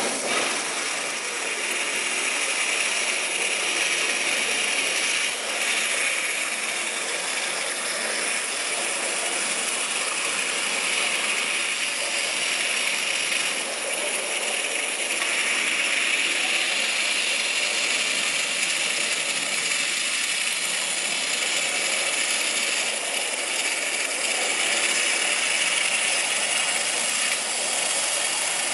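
CNC waterjet cutting machine running, its high-pressure water jet making a steady hiss.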